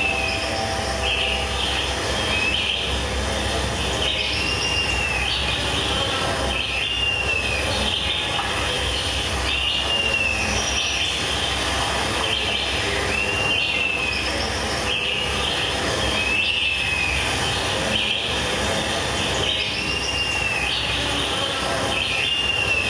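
Steady, dense noise soundscape with a short high squeal, rising then falling in pitch, that recurs every few seconds.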